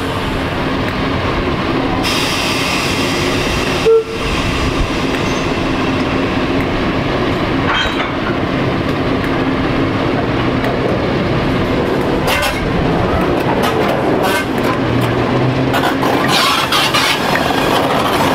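British Rail Class 08 diesel shunter's English Electric six-cylinder engine running steadily as it hauls a rake of goods wagons at low speed, with scattered clanks from the wheels and wagons. One sudden, very loud short bang about four seconds in.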